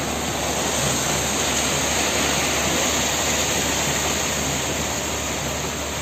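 Steady, even rushing noise of site machinery running, with a faint low hum underneath.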